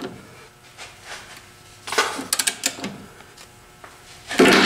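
Hand ratchet wrench clicking in short bursts on the rusted control-arm bolts of a truck's suspension, with a louder burst of mechanical noise near the end.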